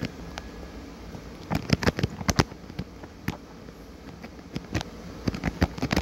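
Scattered sharp clicks and crackles, bunched into two clusters, over a steady background hiss.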